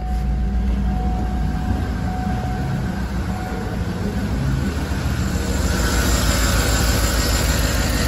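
2012 Cadillac Escalade's 6.2 L V8 idling steadily while misfiring on cylinder 7: that cylinder's lifters are stuck off, leaving it with almost no compression.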